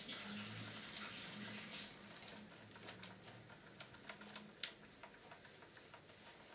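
Faint, scattered light clicks and ticks from a gloved finger prodding the plastic and metal parts of an opened VCR tape mechanism, over a low hum that fades about four and a half seconds in.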